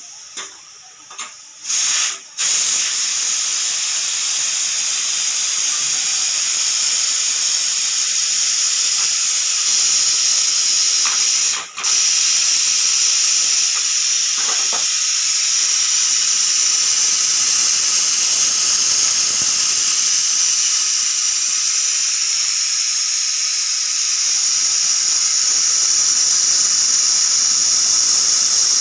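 Pressure cooker whistle venting steam: a few short puffs, then a loud, continuous high-pitched hissing whistle, cut off for a moment about twelve seconds in. The cooker has come up to pressure and the weight valve is lifting to let steam out.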